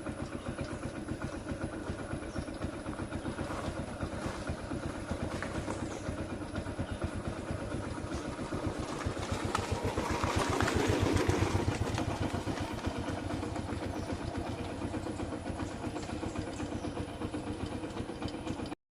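Motorcycle engine running steadily with an even firing beat, getting louder for a few seconds around the middle before settling back.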